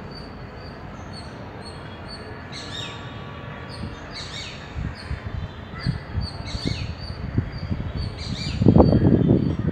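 Small birds chirping repeatedly in short high notes, with bursts of quick falling calls every second or two, over a steady low background rumble. A louder low rumble joins them near the end.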